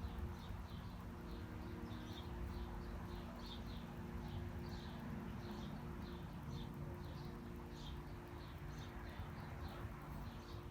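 Small birds chirping in quick repeated short notes, over a steady low rumble of city background noise with a faint constant hum.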